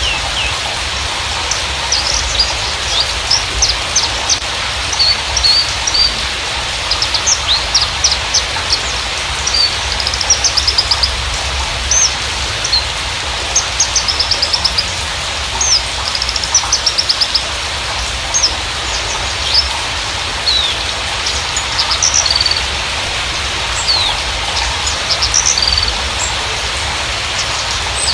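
Javan bushlark (Mirafra javanica parva) singing: a run of short, high chirps and quick trills repeated in clusters, over a steady hiss.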